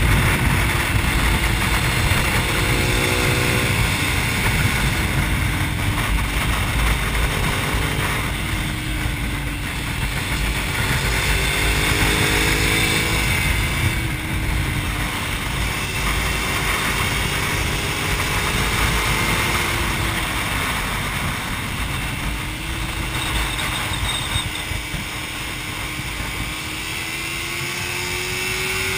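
Suzuki SV650's V-twin engine running hard at speed, its note rising under acceleration and dropping back again and again through the corners. A heavy rumble of wind on the microphone runs under it.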